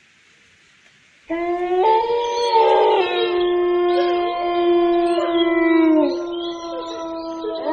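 Several long, overlapping howls start suddenly about a second in, each held on a steady pitch and sliding down at its end.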